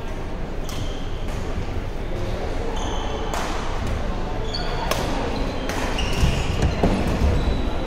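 Badminton racket strikes on a shuttlecock, several sharp smacks, mixed with short high squeaks of court shoes on a hardwood gym floor. Voices and play from other courts echo through the large hall.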